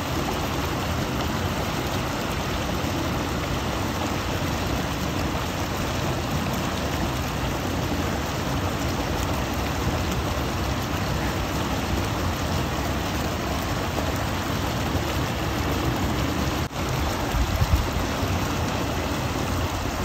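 Creek water pouring over a low concrete spillway into a foaming pool: a steady rushing splash. A few brief low rumbles come near the end.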